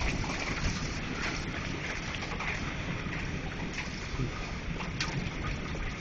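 Heavy rain falling in a steady hiss during a hailstorm, with wind and a few scattered sharp ticks.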